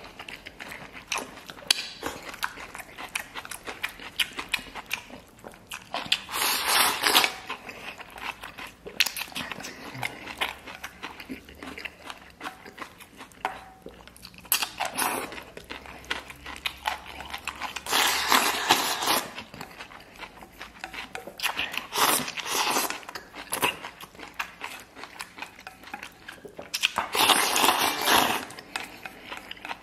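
Close-up eating sounds: rice and bok choy shoveled from a stainless steel bowl into the mouth with chopsticks, in about five loud noisy bursts of a second or so, with chewing and small clicks of chopsticks against the bowl in between.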